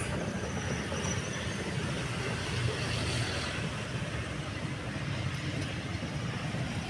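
Steady low rumbling outdoor background noise with no distinct events or voices.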